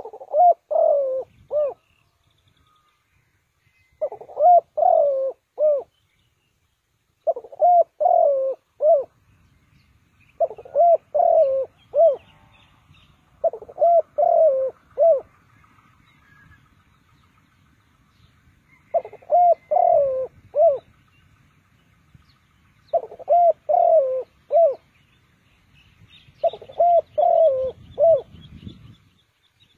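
Spotted dove cooing: a short phrase of four or five low hooting notes, repeated about every three to four seconds, with one longer pause midway.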